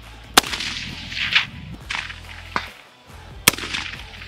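Suppressed HCAR rifle, a BAR-based .30-06, firing armor-piercing rounds at steel: two sharp shots, about half a second in and about three seconds later, with fainter rushing noise between them.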